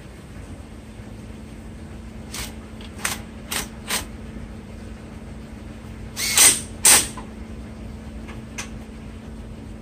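Cordless impact wrench fired in short bursts to tighten the suspension bolts after a CV axle install: four brief bursts starting about two seconds in, then two louder, longer ones a little past six seconds.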